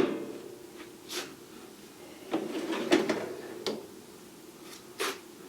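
Tools being handled in a lathe toolbox: a sharp knock at the start, then scattered clicks, knocks and brief scraping, with a last knock about five seconds in.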